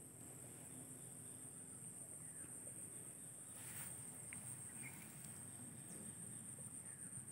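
Insects in the rice field keep up a steady, faint, high-pitched chorus, with a short rustle near the middle.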